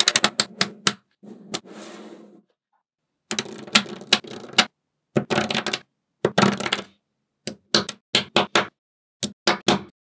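Small magnetic balls clicking together in quick runs of sharp snaps as they are set into place, with stretches of softer rattling between the runs.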